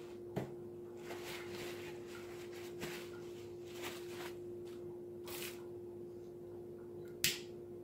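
Faint rustling and handling noises, a brief hiss about halfway through and a sharp click near the end, over a steady hum.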